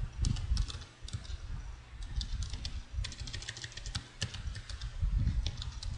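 Typing on a computer keyboard: irregular keystroke clicks, with a quick run of keys about halfway through.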